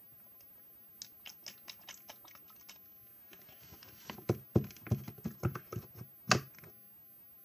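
Sticky slime being worked by hand with contact lens solution activator: a run of small wet clicks and squelches, sparse at first and getting denser and louder about four seconds in.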